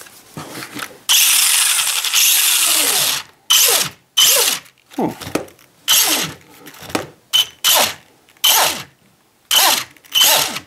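Electric RC truck's motor and gears whining under throttle: one long run of about two seconds, then a string of short throttle blips, each winding down in pitch as it coasts off.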